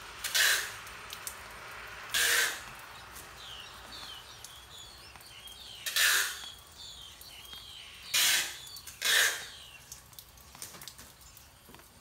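Yellow-vented bulbul chick at the nest begging with five short, harsh, hissing calls while an adult feeds it, with faint thin chirping between them.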